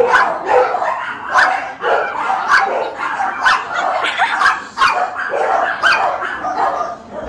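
Dogs barking and yipping over and over, sharp barks coming every fraction of a second and overlapping.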